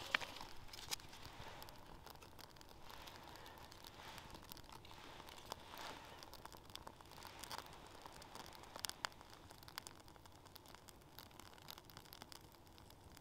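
Small wood fire crackling faintly, with scattered sharp pops and clicks. A few light wooden knocks come as split kindling sticks are laid onto it, one about six seconds in.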